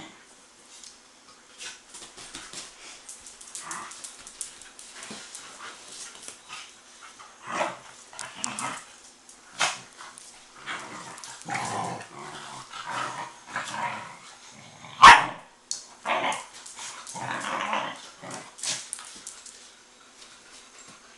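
A group of young dogs play-fighting, growling with scattered short barks and yips in irregular bursts. One much louder sharp sound comes about two-thirds of the way through, and the scuffle quietens near the end.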